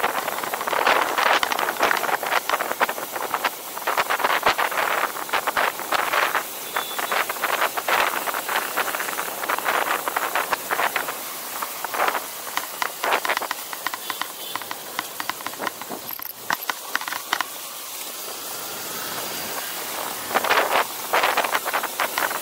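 Wind rushing and buffeting over the microphone of a camera on a moving motorbike, in irregular gusts. It eases off for a few seconds past the middle before picking up again near the end.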